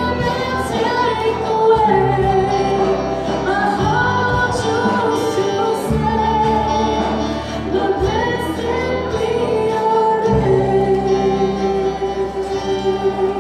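A church worship team and congregation singing a contemporary worship song to a live band. The voices hold long notes over bass guitar and light cymbal hits.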